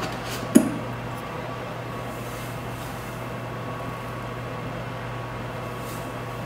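Steady low hum of kitchen room tone, with one short click about half a second in as the salt canister's pour spout is opened.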